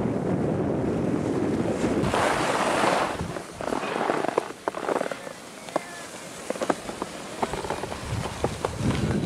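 Wind rushing over the microphone of a camera carried by a moving skier for the first three seconds. After that it is quieter: skis hissing and scraping over packed snow, with scattered short sharp clicks.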